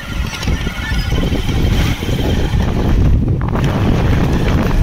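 Riding on a two-wheeler: wind rushes over the microphone with the engine running underneath, growing a little louder over the first few seconds.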